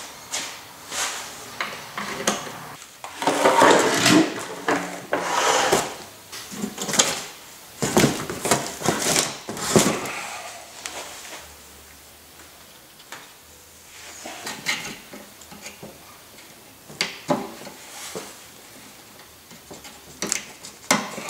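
Car radiators with plastic tanks being handled on cardboard: irregular knocks, clicks, scrapes and cardboard rustling, busiest in the first half and sparser later.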